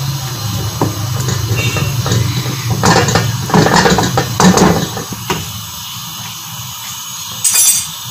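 A metal spatula scrapes and knocks against a steel wok as chicken pakoras are stirred in a simmering yogurt masala gravy. From about five seconds in, only the gravy's steady low hiss remains, with a brief louder hiss near the end.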